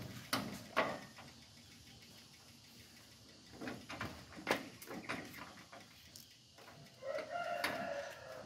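Sliding wooden gate with a metal frame being tugged by its handle: a few sharp knocks and rattles, then a longer pitched squeak about seven seconds in.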